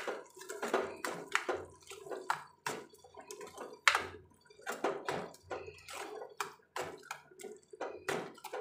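A steel spoon stirring thick wet masala in a metal kadai, scraping and knocking against the pan in irregular strokes, a couple each second.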